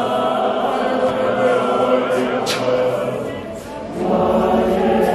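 Large church choir singing a hymn together, many voices in held notes; the sound dips briefly about three and a half seconds in, then the voices come back in strongly.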